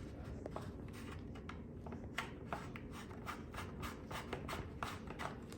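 Hands working on shower fittings: light rubbing with scattered small clicks and ticks, several a second, over a steady low hum.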